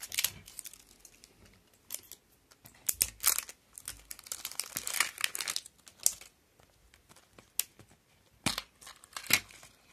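Plastic wrapper of a surprise egg crinkling and tearing in irregular bursts as it is peeled off a yellow plastic egg capsule, with two sharp clicks near the end.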